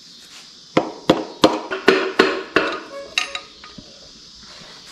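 A quick run of about seven sharp metal taps, hammer blows on engine parts, some with a brief metallic ring, followed by a few lighter clinks, typical of knocking a piston and rod out during an engine teardown.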